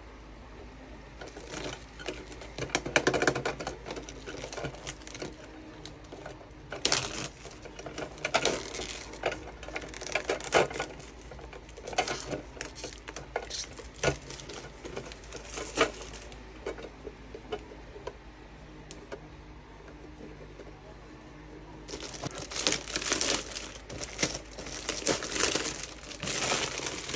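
Plastic wrapping crinkling and hard plastic organizer parts clicking and tapping as they are unwrapped and handled, with a busier stretch of crinkling near the end.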